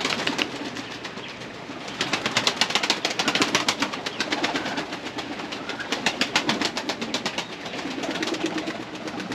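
Pigeons cooing, over a rapid, irregular tapping.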